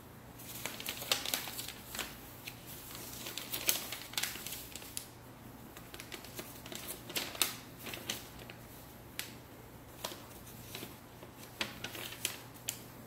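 Paper instruction manual being leafed through: irregular crisp rustles and flicks of pages being turned.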